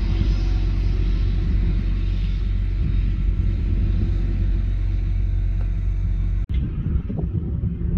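Claas Jaguar 960 self-propelled forage harvester chopping grass and blowing it into a silage trailer, with the tractor pulling the trailer running alongside: a steady machine drone with a deep rumble. About six and a half seconds in, the sound cuts out for an instant and comes back duller.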